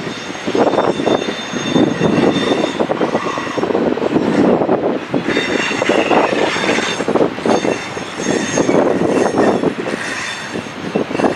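Double-stack intermodal freight cars rolling past with a steady rumble and rapid clatter of steel wheels on the rails. Thin high wheel squeals ride over it and are loudest about halfway through.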